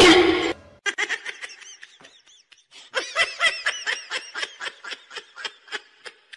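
A person laughing in a quick, even run of high-pitched giggles, about four a second, with a short break partway through. A brief loud sound comes right at the start.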